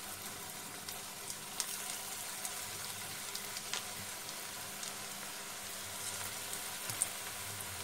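Bombay duck fish fritters deep-frying in hot oil in a wok: a steady sizzle with scattered crackling pops.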